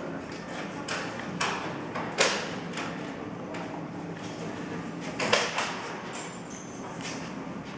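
Indoor exhibition hall ambience: a steady low hum with a few sharp knocks or clacks, the loudest a little over two seconds in and another about five seconds in.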